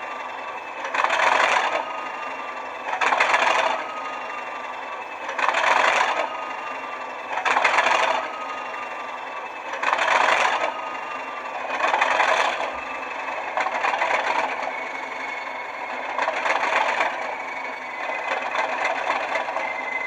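Class 37 diesel locomotive's English Electric V12 engine idling roughly after a cold start, surging regularly about every two seconds. A thin turbocharger whine slowly falls in pitch.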